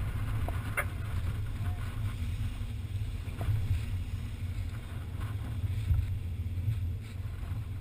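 Lifeguard rescue boat under way through the surf: a steady low engine rumble mixed with wind buffeting the microphone and water rushing in the wake, with one short click about a second in.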